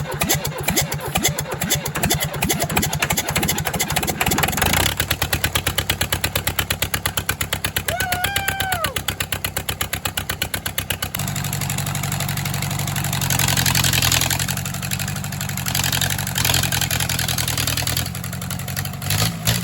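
Case bulldozer diesel engine running just after starting, with distinct, evenly spaced firing pulses; about eleven seconds in it settles into a denser, steadier run.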